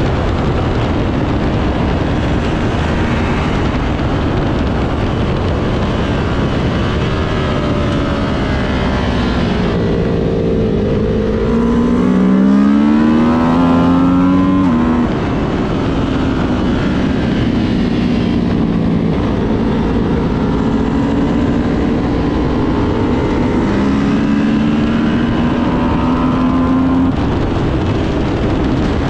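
Kawasaki Ninja 400 parallel-twin engine heard onboard at track speed under heavy wind rush. The engine note climbs steeply through the revs about ten to fifteen seconds in, drops off suddenly, and rises again near the end as the rider accelerates and backs off.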